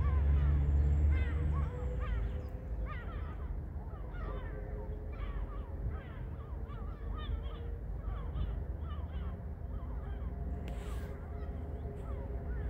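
Many birds calling in quick, short, falling chirps all through, over a low rumble that is loudest in the first second and a half. A brief hiss comes near the end.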